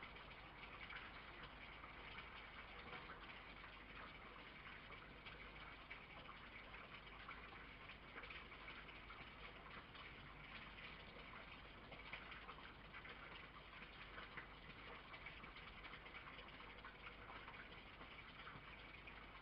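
Near silence: a steady faint hiss with light scattered ticks.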